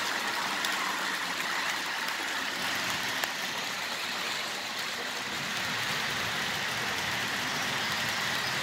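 HO-scale Stewart Hobbies diesel locomotives running along the model layout's track: a steady whirring hiss with faint scattered clicks.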